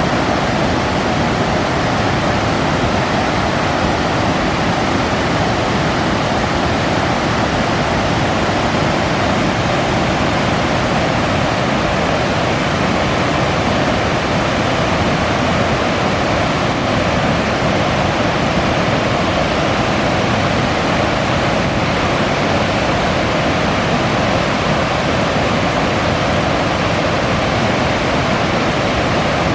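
River water rushing over a waterfall, a loud, steady, unbroken rush.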